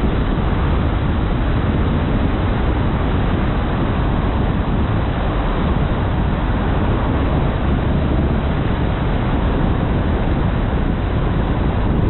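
Steady road and wind noise from a moving car, even and unchanging throughout.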